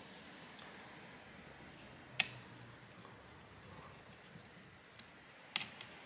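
A few small clicks and taps of a precision screwdriver at the laptop heatsink's screws: a sharp single click about two seconds in and a quick run of clicks near the end.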